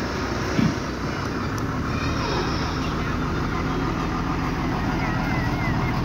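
Truck engine of a parade tableau float running steadily, a low continuous rumble, with a short loud thump about half a second in.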